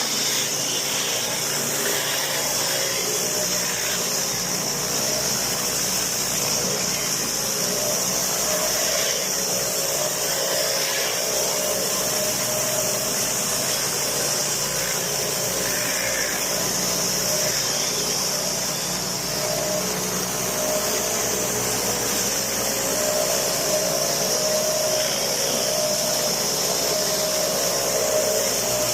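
Pressure washer running steadily, its spray giving a continuous high hiss over the motor and pump's steady hum.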